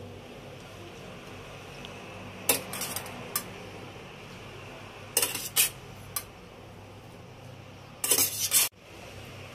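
Metal spoon knocking and scraping against a metal frying pan as cooked orecchiette pasta is spooned into it, in several short clattering bursts.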